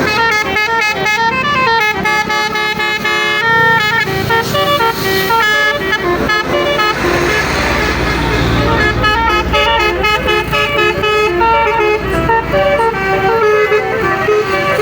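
Bus "telolet" multi-tone air horn playing a fast melody of short stepping notes, over the low rumble of the bus's engine running.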